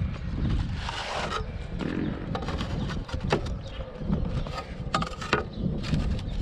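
Cordless stapler shooting narrow crown staples into roof shingles: several sharp shots at uneven spacing, with the scrape and handling of the shingles between them.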